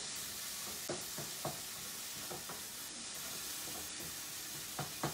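Chopped tomatoes and onions sizzling in oil in a nonstick frying pan as they cook down into a curry base, with a few irregular scrapes and taps of a slotted spatula stirring them, two of the clearest near the end.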